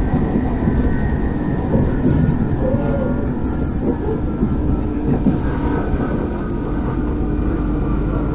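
RER B suburban electric train running, heard from inside the car: a steady rumble with faint whining tones from the traction equipment, whose noise the rider calls strange.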